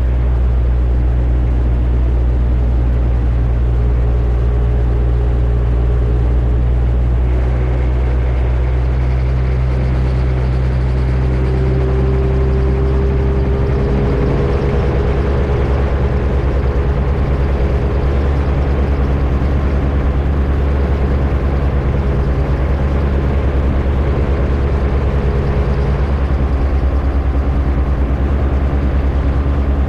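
X'Air microlight's Rotax 582 two-stroke engine and propeller running steadily, with its note shifting about halfway through.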